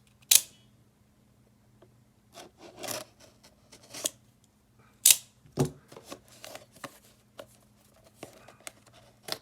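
A blade cutting through packing tape on a cardboard box, in irregular sharp slicing and scraping strokes, the loudest just after the start and again about five seconds in.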